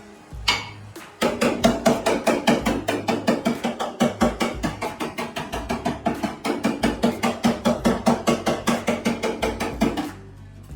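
Rapid hammering on sheet metal, about six ringing strikes a second, in a steady run that starts about a second in and stops near the end: bodywork on a Suzuki Swift's damaged body panels.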